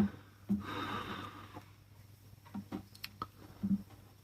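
Quiet handling of a plastic cable tie and the bottle: a soft rustle, then a few small sharp clicks and taps of plastic.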